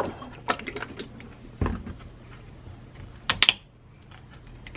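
Handling sounds on a kitchen countertop: a stemmed glass set down and a paper rustling, then a low knock and a few light clicks as an oat-milk carton is picked up and handled. The loudest is a sharp pair of clicks about three seconds in.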